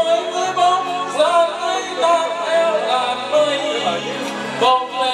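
A song: a singer holding long, gliding notes over instrumental accompaniment with steady bass notes.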